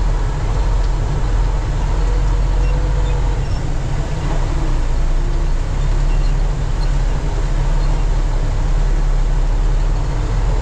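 Diesel truck engine running, a steady low rumble heard from inside the cab.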